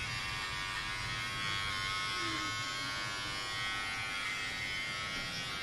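Electric hair clippers running with a steady buzzing hum as they are worked over a boy's head during a haircut.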